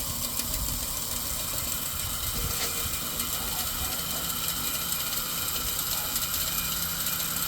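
Old K-Mart box fan with a rusty bicycle rim in place of its blades, running steadily: an even motor hum with the whir of the spinning rim.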